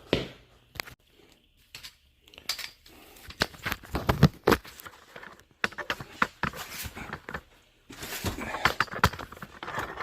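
Irregular metallic clinks, clicks and knocks of hand tools and car parts being handled while working on a car's front suspension.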